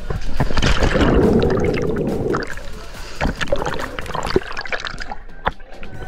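A person plunges feet-first into a waterfall pool with a heavy splash, followed by muffled underwater bubbling, gurgling and scattered knocks as the microphone goes under the water.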